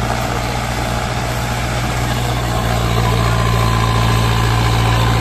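Mahindra Arjun tractor's diesel engine running steadily with a deep, even hum as it pulls trailers loaded with sugarcane slowly forward through sand.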